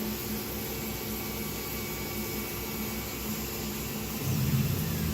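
Steady mechanical hum of a Tormach 1100 CNC milling machine waiting to start a cut. A louder low hum joins about four seconds in.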